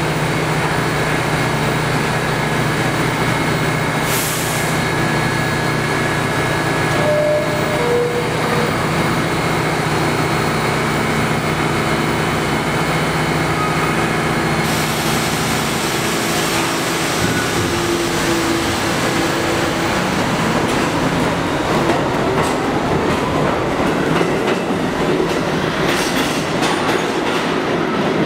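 NYC Subway R68-series B train standing at a platform with its equipment humming steadily. About four seconds in comes a brief hiss of air, and about seven seconds in a two-note falling door chime. From about halfway the train pulls out, its motors and wheels clattering louder and rising in pitch as it gathers speed.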